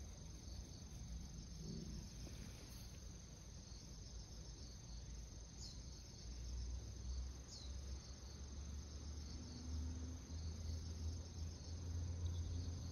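Steady high-pitched insect chirring, cricket-like, throughout, with two short falling chirps about midway. A low rumble grows louder in the second half.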